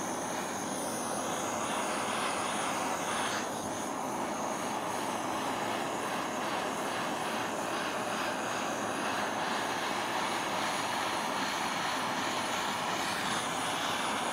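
Handheld gas torch flame burning steadily, played under a copper plate to bring it up to hard-soldering temperature.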